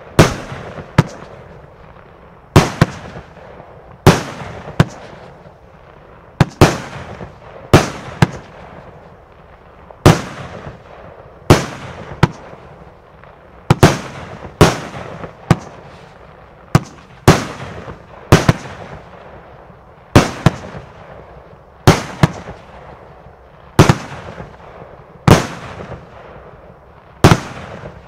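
Heron PSP 1-11 multi-shot fireworks cake firing shot after shot, comets launching and breaking into peonies. Each shot is a sharp bang with a short ringing tail, about one a second.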